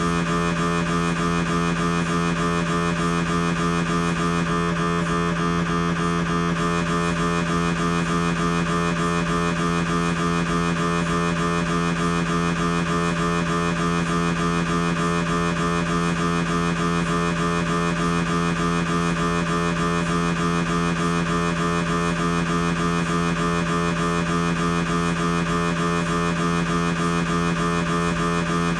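Siemens MAGNETOM Lumina 3 T MRI scanner's gradient coils running a T2-weighted transverse turbo spin echo sequence. It makes a steady, fast-pulsing buzzing hum with a strong low tone and many overtones.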